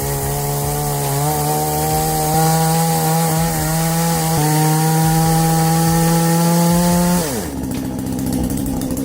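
Petrol chainsaw running at high revs, cutting through wood, its engine note holding steady and rising slightly. About seven seconds in the revs fall away sharply to a lower running speed.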